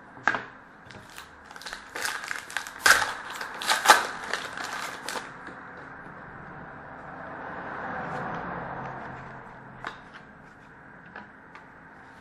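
Hockey trading cards and their pack wrapper being handled: a run of sharp crinkling and clicking for about five seconds, then a softer rustle of cards sliding against each other, and a few light taps near the end.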